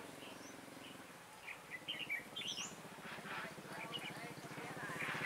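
Red-whiskered bulbuls giving short chirping calls in small clusters. Under them a small engine runs steadily and grows louder toward the end.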